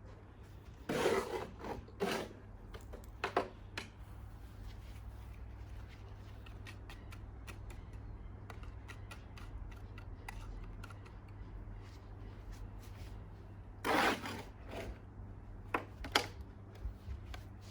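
Short, scattered scraping and rustling sounds of hands working at something, about a second and two seconds in and again near the end, over a steady low hum.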